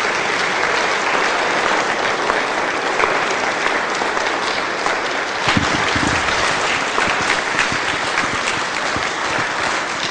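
Audience applauding steadily and densely, many hands clapping at once, with a couple of brief low thumps a little past halfway.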